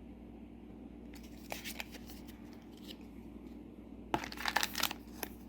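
Trading cards and a foil booster-pack wrapper being handled: a few soft scattered rustles, then a denser burst of crinkling and crackling about four seconds in.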